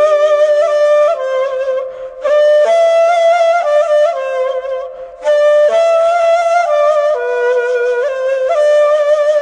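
Instrumental music: a flute plays a slow melody of held notes, in phrases that break off briefly about two and five seconds in.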